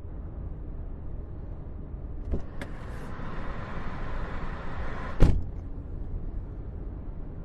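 A car engine running steadily with a low rumble. A few sharp clicks come between about two and three seconds in, and a single heavy thump about five seconds in is the loudest sound.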